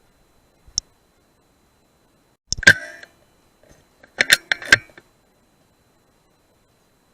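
Sharp mechanical clicks: one short click, then a loud cluster of clicks with a brief ring, then four quick clicks in close succession.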